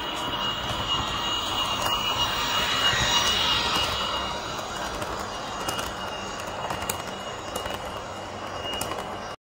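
Roco model of the FS E.432 electric locomotive with a Leosoundlab sound decoder, passing close with its train: a steady running noise with a thin high whine and light clicks from the wheels on the track. It grows loudest about three seconds in as the locomotive goes by, then eases as the coaches roll past.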